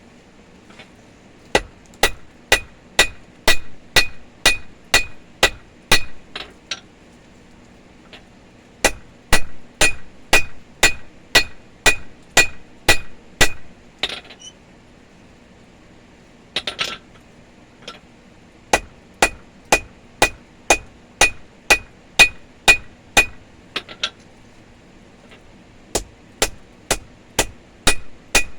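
Blacksmith's hand hammer striking hot steel on an anvil, drawing out the chisel end of a chipping hammer. The blows come in four runs at about two a second, each with a short ringing clang, with pauses of a few seconds between runs.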